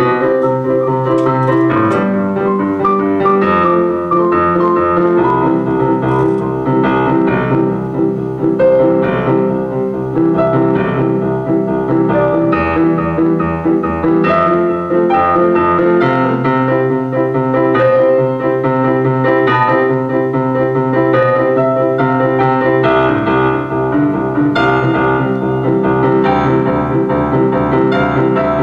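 Improvised piano and bass guitar playing together: the bass holds low notes that change every few seconds under a steady stream of piano notes and chords.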